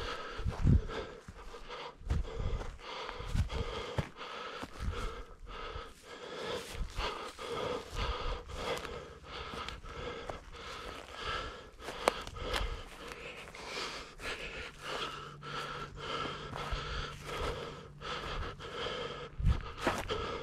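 A hiker breathing hard through the nose and mouth while climbing a steep rocky ridge trail, in a repeated rhythm of breaths, with occasional low thumps.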